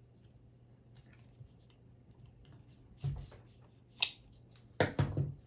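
Steel Wera hex keys clicking and rattling against each other as a long key is pulled out of the set's rubber clip holder. There are a few short metallic clicks, the sharpest about four seconds in.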